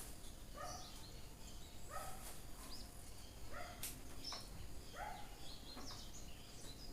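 Birds calling outdoors, short chirps repeated irregularly about once a second over steady background noise.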